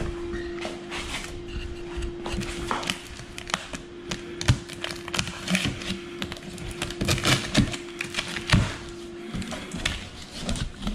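A knife cutting through the packing tape on a cardboard box and the flaps being pulled open: a run of crackles, scrapes and taps. A steady hum runs underneath and breaks off briefly near the end.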